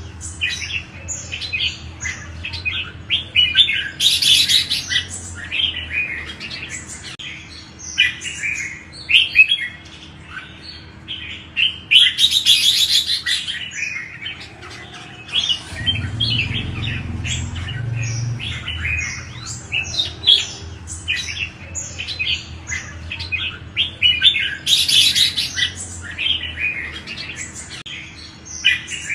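Red-whiskered bulbuls singing, a steady run of short chirpy phrases, broken three times by louder, denser bursts of calling.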